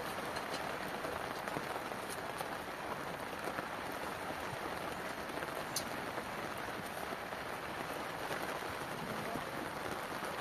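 Steady rain falling, an even hiss with scattered sharper drop clicks, one standing out just before six seconds in.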